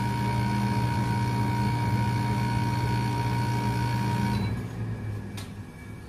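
Split-type air conditioner outdoor unit running, its compressor humming steadily together with the condenser fan, now working on a newly fitted 50 µF capacitor. A little over four seconds in, the hum cuts off as the unit is switched off, leaving the fan coasting down, and a single click follows about a second later.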